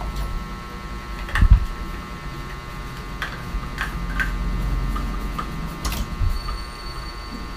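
A few short, light clicks and taps of small plastic parts being handled and fitted onto a kitchen faucet, over a steady low hum.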